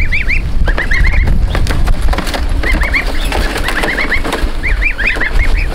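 Goslings peeping in quick runs of four to six high chirps, over a steady low rumble.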